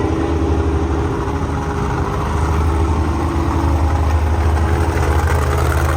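Engine sound effect of a big truck idling, a steady low rumble with a fast, even throb.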